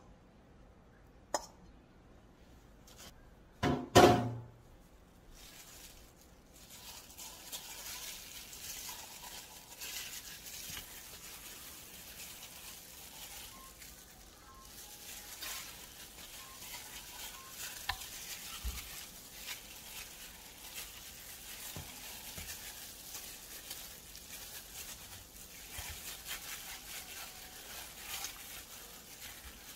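A metal spoon knocks against a stainless steel mixing bowl, which rings briefly about four seconds in. Then comes a steady wet squelching and rustling as a plastic-gloved hand rubs seasoning paste into a slab of pork in the bowl.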